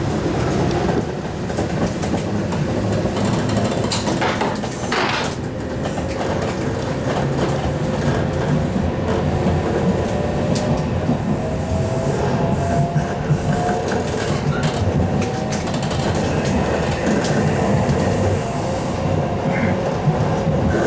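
Shinkansen bullet train heard from inside the passenger car: a steady rumble of running gear and air, with a faint whine that rises in pitch partway through as the train gains speed. A short rushing noise comes about four seconds in.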